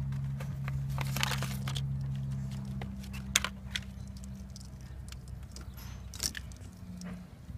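Crinkling, rustling and a few sharp clicks from wires and connectors being handled, over a steady low hum that drops away about three seconds in.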